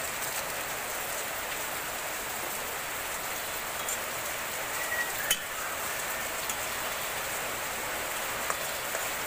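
Thick fish curry sizzling steadily in an aluminium kadai as a metal spatula stirs it, with a few light clicks of the spatula against the pan, the sharpest about five seconds in.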